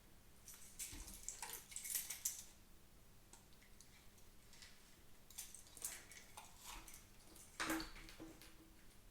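Faint scraping and small plastic clicks and ticks in a few short clusters, from hands and a tool working at the underside of a computer mouse's plastic shell, where stickers cover the screws.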